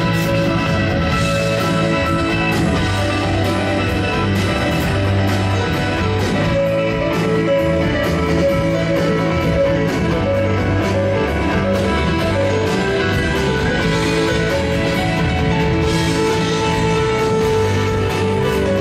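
Live blues-rock band playing, electric guitar to the fore over bass and a steady drum beat.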